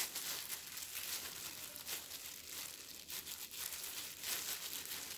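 Thin disposable plastic gloves crinkling softly as hands press and shape a rice ball.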